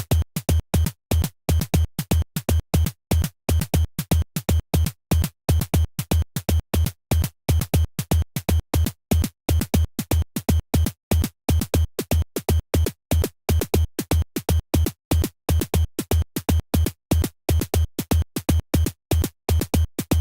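Synthesized kick and snare drum pattern from a Pure Data patch, sequenced as a Euclidean rhythm, with the kick bit-crushed (bit depth and sample rate reduced). The short hits come about four a second, with some steps left silent.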